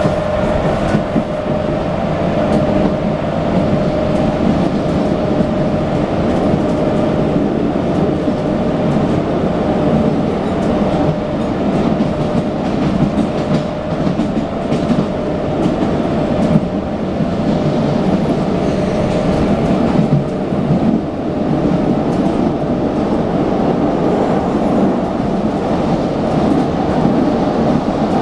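Cabin ride noise of a CAF articulated electric multiple unit running at speed: a steady rumble of the wheels on the rails. A steady whine in the first few seconds fades away.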